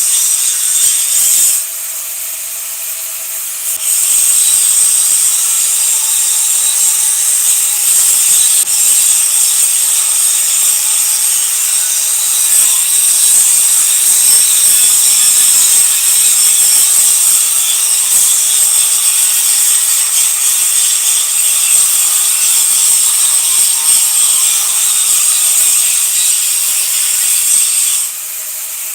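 Electric arc welding: the arc crackles and hisses steadily. It breaks off about a second and a half in, strikes again about two seconds later, and stops near the end.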